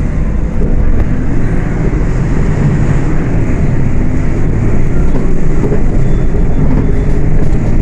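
Diesel engine of a Volksbus 18.280 OTS city bus running under way, a steady low rumble that grows slightly louder about a second in.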